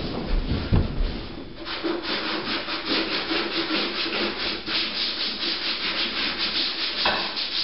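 A rag scrubbing the inside of a refrigerator, rapid even back-and-forth strokes at about four a second, starting a little way in after a few low knocks.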